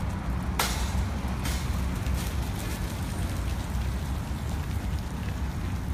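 Water from a lawn sprinkler spraying and pattering onto the ground, over a steady low rumble. A sharp click comes about half a second in and a fainter one about a second later.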